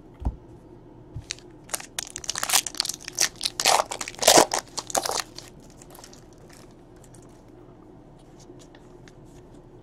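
A foil trading-card pack wrapper being torn open and crinkled: a burst of crackling rips and crumples in the middle, then only faint ticks.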